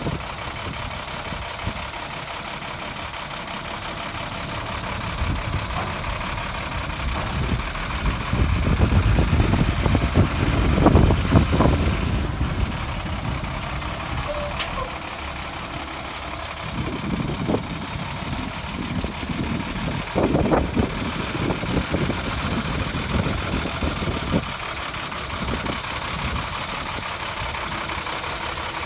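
Diesel engine of an International 7500 WorkStar dump truck running as the truck drives slowly. It pulls harder and louder for a few seconds near the middle, and again briefly later on.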